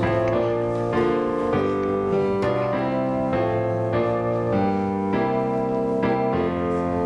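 Keyboard instrument playing slow, held hymn-style chords with no singing, the chords changing every half second to a second.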